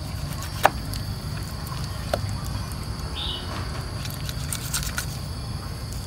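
Knife deboning a pork leg on a wooden chopping board: a sharp knock of the blade about half a second in, a smaller one about two seconds in and a few light ticks near the five-second mark, over a steady low background rumble. A short high chirp sounds a little after three seconds.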